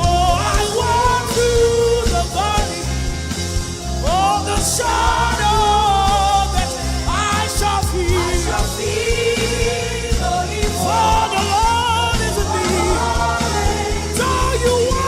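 Live worship music: a singer carrying a melody over a band with steady bass and drums.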